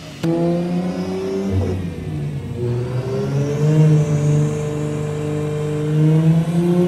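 Turbocharged Toyota JZ straight-six in a BMW 3 Series running under load on a chassis dyno, the car's rear wheels driving the rollers. The engine comes in abruptly just after the start, its pitch dips at about a second and a half, then rises slowly and steadily as the revs climb.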